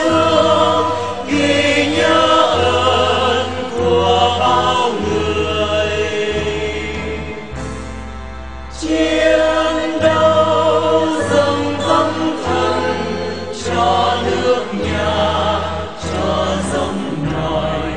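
Music: a choir singing over long held bass notes, softening briefly about eight seconds in and then swelling again.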